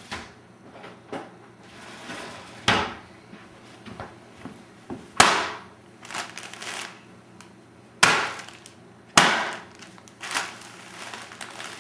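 Sealed plastic packing air pillows bursting: four sharp, loud pops a few seconds apart, with plastic crinkling and crackling between them.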